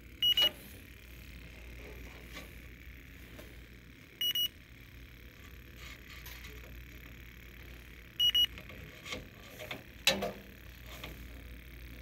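Fieldpiece DR82 heated-diode refrigerant leak detector giving a short, high double beep every four seconds: its slow ready rate while scanning, with no leak picked up. A sharp knock sounds about ten seconds in.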